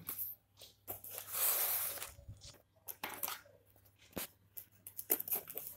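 Scissors cutting the plastic packing tape on a cardboard parcel: one longer tearing rasp about a second in, then a few separate sharp snips and clicks.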